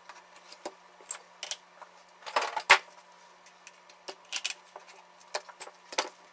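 Steel tubes and spring clamps being set down and snapped onto a board: scattered light clicks and knocks, with a sharper clack about halfway through.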